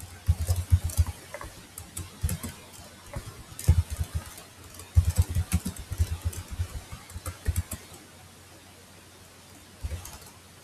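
Typing on a computer keyboard: bursts of keystrokes, each a click with a dull thud. There is a pause of about two seconds near the end, then a couple more keys.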